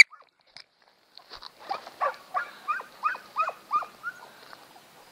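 Dog whining in a quick run of short, falling yelps, about three a second, starting about a second and a half in and stopping a little after four seconds.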